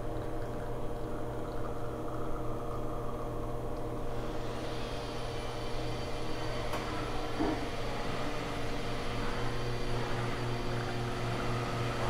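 Nuova Simonelli Appia Life one-group espresso machine running through a shot extraction at full brew pressure, its pump giving a steady hum. A steady hiss joins in about four seconds in.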